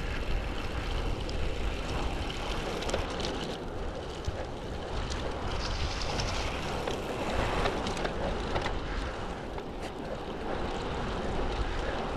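Steady wind rushing over the microphone while riding a road bike along an asphalt trail, with the hiss of the tyres on the pavement beneath it.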